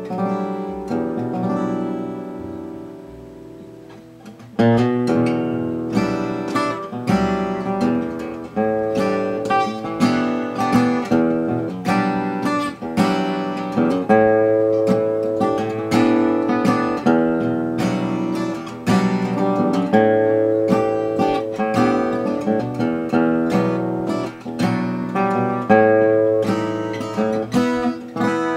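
A 1945–46 Gibson LG-2 acoustic guitar being played: a chord rings and fades over the first four seconds, then picked notes and chords follow steadily to the end.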